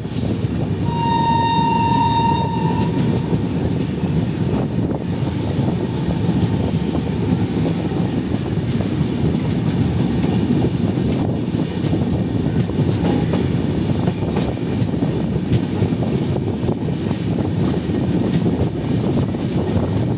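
A moving passenger train with a steady rumble of wheels on the track. About a second in, a train horn sounds one steady blast of about two seconds.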